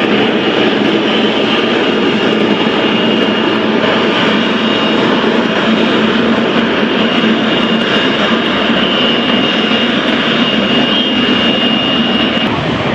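Jet airliner's engines running loud and steady, a dense roar with a thin high whine over it that fades out near the end.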